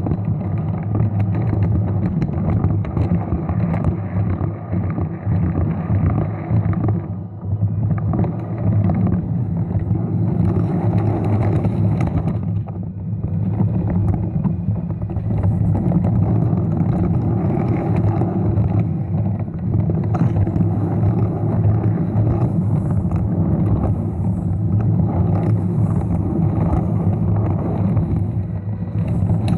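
Lego train running along plastic track: a steady motor hum and rumble, which dips briefly twice.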